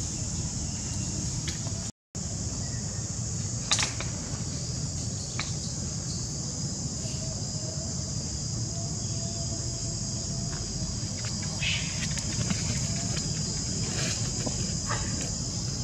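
Steady, high-pitched drone of an insect chorus over a low outdoor rumble, with a few faint clicks; the sound cuts out completely for a moment about two seconds in.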